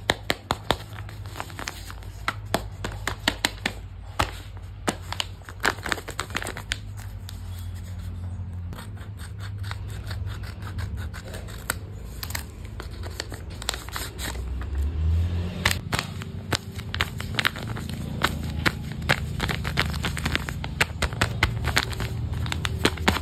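Paper crafting by hand: paper being scraped, crinkled and cut, with many irregular sharp clicks and snaps over a steady low hum.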